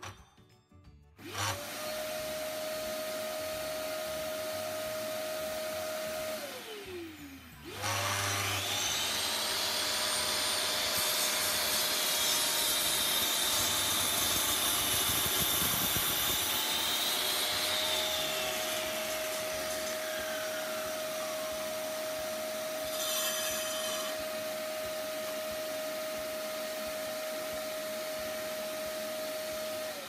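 Vacuum cleaner running as dust extraction on a Bosch GCM 8 SJL sliding miter saw, briefly winding down and restarting in the first quarter. The saw's motor then starts with a rising whine, cuts through a wooden board, and spins down with a falling whine, while the vacuum keeps running steadily to the end.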